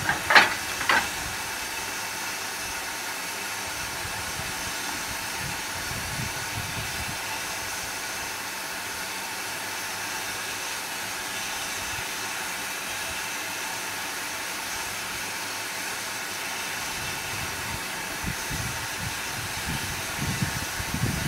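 Steady steam hiss from a steam locomotive's boiler and firebox, heard in the cab, with a faint steady hum running through it.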